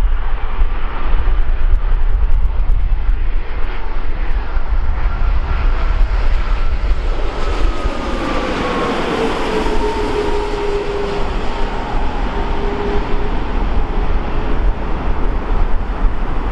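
Boeing 787 jetliner with Rolls-Royce Trent 1000 engines on final approach, passing low overhead. Its engine tones drop in pitch about eight seconds in as it goes by, over a steady jet rumble and wind rumble on the microphone.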